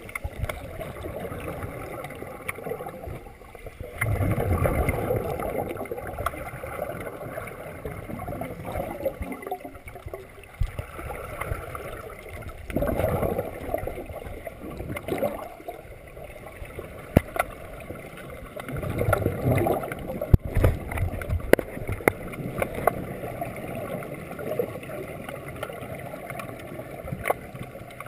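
Muffled underwater sound from a scuba diver's regulator: exhaled bubbles gurgling out in louder bursts every several seconds, with scattered sharp clicks and knocks.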